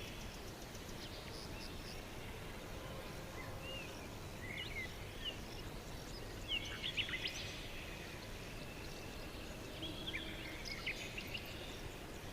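Wild birds chirping and calling in short bursts over a steady background hiss of outdoor ambience. The calls come in clusters, busiest past the middle and again toward the end.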